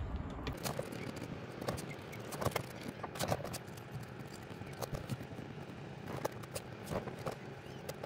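Faint scattered clicks and scraping as a carbon-fibre custom gear knob is twisted by hand down onto the car's shift lever to tighten it.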